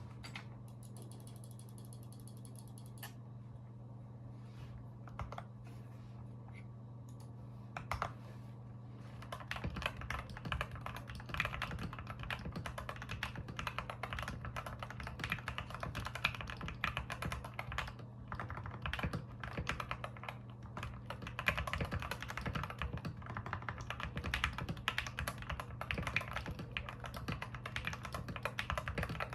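Typing on a modded LK67 mechanical keyboard with Gateron Pro Yellow linear switches, SA-profile double-shot ABS keycaps, foam and lubed stabilisers. A few separate keystrokes come first, then continuous fast typing from about a third of the way in, over a steady low hum.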